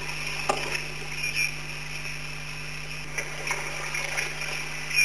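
River water flowing and trickling, with a few small splashes.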